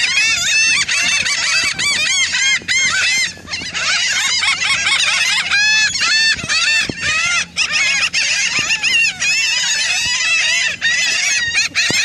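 A flock of laughing gulls calling all together, a dense chorus of short, arching cries overlapping one another without a break.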